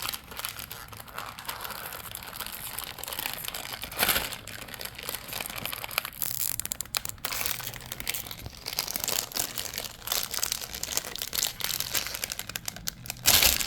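Cadbury Crunchie multipack wrapper crinkling and tearing as it is pulled at by hand, with irregular crackles throughout and sharper rips about four seconds in and again near the end; the packaging is hard to open.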